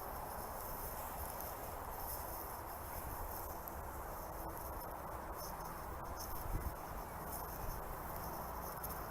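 Faint, steady chirring of insects in long grass.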